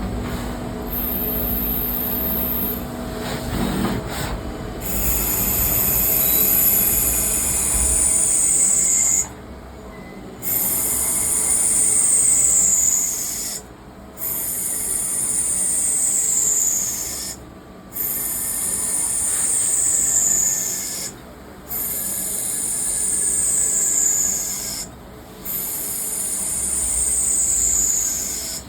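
CNC lathe turning brass parts in a repeating cycle. The cut gives a high whine that slides down in pitch, with a brief pause every three and a half to four seconds between passes.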